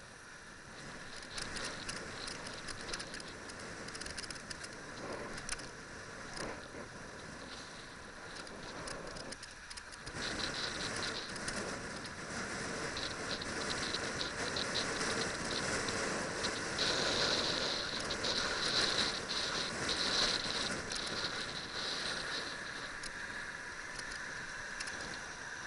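Bicycle-mounted action camera rattling and rustling as the bike rides over city pavement: a steady noisy hiss thick with small clicks, louder from about ten seconds in.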